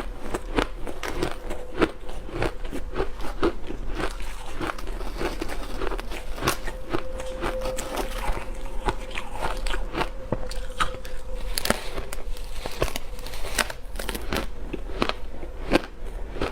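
Ice being bitten and chewed close to the microphone: a dense run of sharp cracks and crunches, several a second, as the ice breaks between the teeth.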